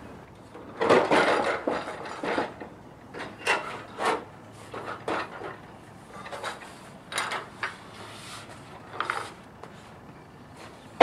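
Long metal rain gutter clanking and scraping as it is lifted off the fascia and lowered to the ground: a series of irregular clatters, loudest in the first couple of seconds.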